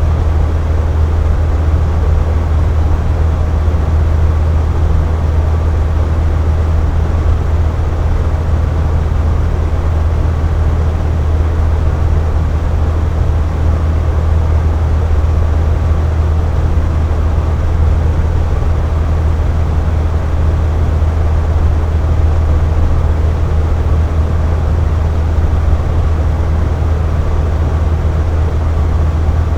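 Air conditioner running steadily: a constant low hum with airflow noise over it.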